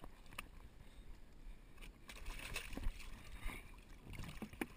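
Water splashing and lapping at a boat's side as a gloved hand reaches in to grab a jug-line float, with a few sharp knocks, the loudest about three seconds in.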